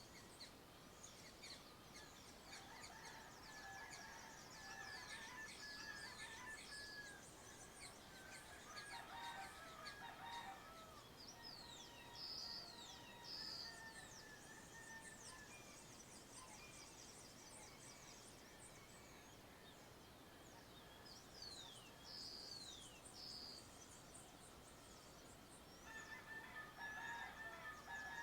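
Faint countryside dawn chorus: many birds calling at once, with quick down-sweeping whistles, short repeated chirps and held whistled notes, and a rooster crowing among them. The calls come thickest in the first half and again near the end.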